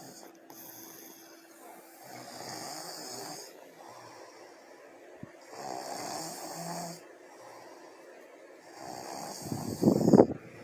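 A father and son snoring in their sleep: four slow snoring breaths about three seconds apart, the last one near the end much louder than the rest.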